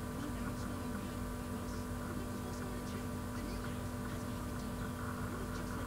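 Steady electrical hum with several fixed tones and a faint hiss underneath, a microphone's background noise, with faint, indistinct speech.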